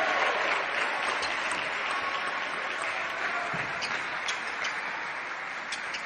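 Clapping and applause after a point is won in a table tennis match, slowly dying down.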